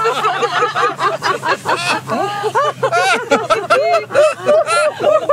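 Several people laughing together in a laughter-yoga exercise: overlapping bursts of deliberate, hearty laughter.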